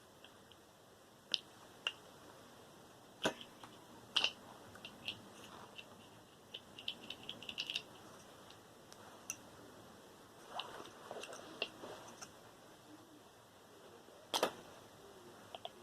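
Scattered sharp clicks and snaps of small plastic and metal parts being handled and pried apart as a computer cooling-fan motor is dismantled, with a quick run of small clicks midway and the loudest snaps about three, four and fourteen seconds in.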